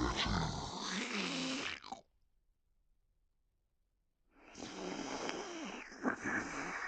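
Two bursts of grunting vocal sounds distorted by stacked audio effects. The first lasts about two seconds. After a gap the second starts about four seconds in and runs on.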